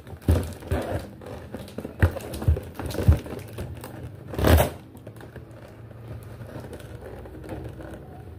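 A cardboard box being handled and opened with scissors: a few knocks and crinkling of the cardboard, and one louder, noisier rip about four and a half seconds in.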